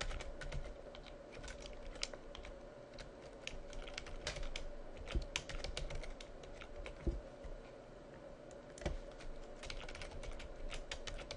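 Typing on a computer keyboard: quick, irregular runs of key clicks with a few heavier strikes, over a faint steady hum.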